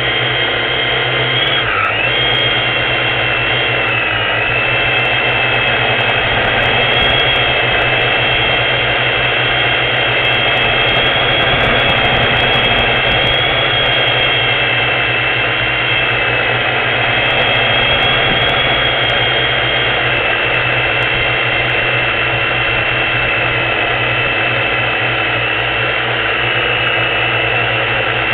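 Quadcopter drone's motors and propellers whining steadily in flight, several high tones over a low hum and a rushing noise, the pitch dipping briefly about two and four seconds in.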